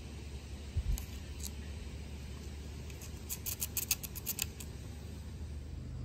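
Light, sharp clicks of small metal multitool parts being handled: a couple of soft taps about a second in, then a quick run of about a dozen clicks between three and four and a half seconds in, over a low steady rumble.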